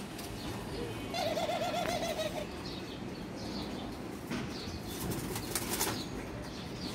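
Caged doves fighting, with one white dove attacking another. A wavering dove call sounds from about one to two and a half seconds in, and a quick cluster of wing flaps and knocks against the cage wire comes about five seconds in.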